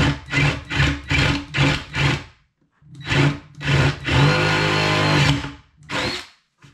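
Cordless drill with a 3/8-inch bit boring up through a wooden cabinet bottom, the trigger pulsed in short bursts about two or three a second, then after a pause two more pulses and one steady run of about a second, with a last short burst near the end. The slow pulsing is careful drilling to keep the wood from splintering.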